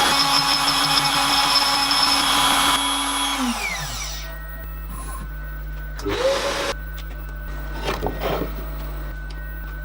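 CNC router spindle running with a steady high whine, then spinning down, its pitch falling, about three to four seconds in. A quieter steady low hum carries on after it, with a couple of brief mechanical sounds.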